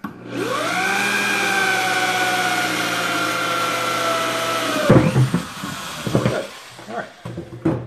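Electric drill with a 1-1/8 inch hole saw spinning up and cutting through the bottom of a plastic bucket, running steadily, then winding down about five seconds in with a loud knock. A few scattered knocks follow as the drill comes out of the bucket.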